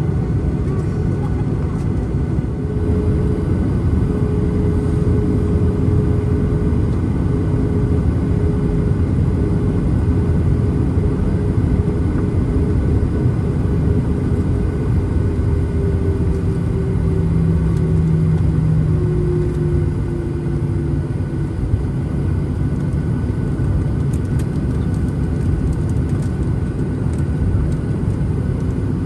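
Cabin noise inside a Boeing 737-900ER from a window seat: a loud, steady low rumble from the CFM56-7B jet engines, with a faint engine tone that slowly drifts lower.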